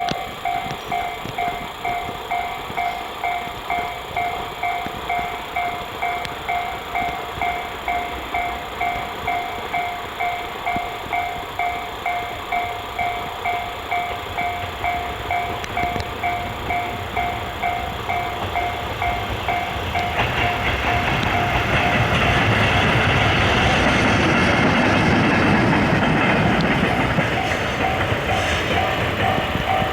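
Japanese level-crossing warning bell ringing, a steady two-pitch ding repeating about twice a second. About twenty seconds in, an EH200 electric locomotive running light passes close by. Its rush and rumble builds and drowns out the bell for several seconds, and the bell comes back as it fades.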